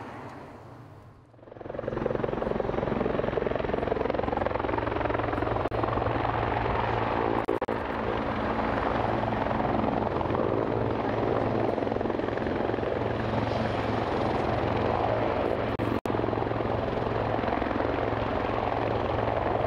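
Firefighting helicopter hovering low over water, its rotor running loud and steady with a constant low thrum. The noise starts abruptly about a second and a half in.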